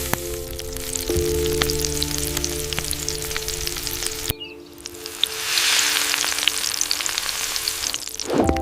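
Fish sizzling as it grills over a wood fire, a steady hiss with scattered sharp crackles. Over the first four seconds a steady tone plays along; it cuts off abruptly, and the sizzling hiss then swells and fades.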